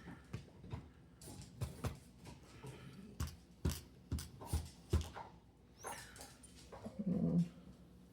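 Small sharp clicks and taps of lock parts and tweezers being handled while the lock's pins are taken out one by one. A short pitched whine sounds about seven seconds in.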